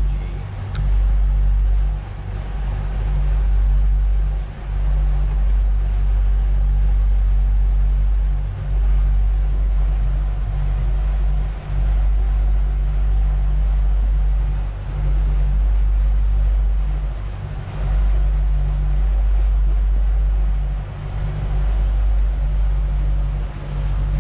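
Twin Suzuki outboard engines running steadily at about 1450 rpm, pushing the boat at slow cruise. Under them is a heavy low rumble that drops out briefly every few seconds.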